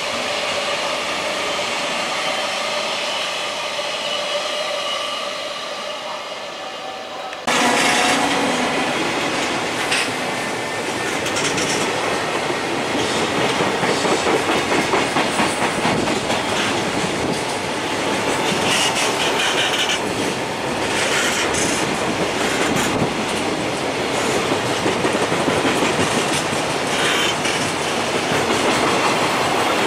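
Container freight train passing: at first quieter, with a steady whine over the running noise. About seven seconds in the sound turns suddenly louder and closer, the wagon wheels clacking over rail joints in a rapid, even rhythm.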